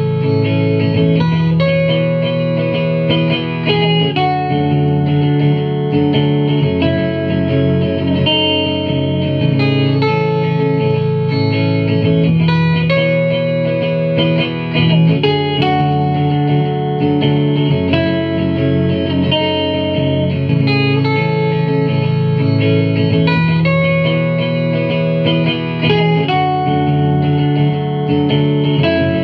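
Guitar played through effects, ringing chords that change every second or two in a repeating progression.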